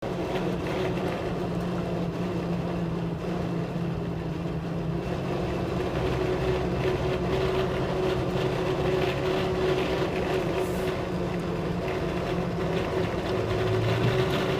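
Steady drone and road noise of a 2016 Toyota Tacoma at speed, heard from inside the cab. Over it runs a steady hum that grows stronger about a third of the way in. This is the noise that comes on above about 40 mph and gets louder the faster the truck goes.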